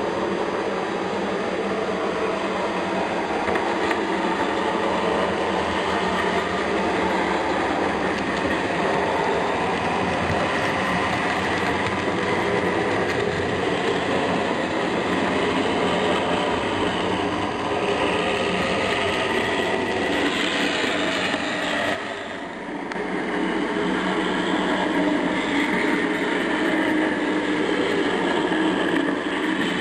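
Model trains running on the layout, a Big Boy steam locomotive and a diesel. Their running noise is steady and continuous, with a short drop in level about two-thirds of the way through.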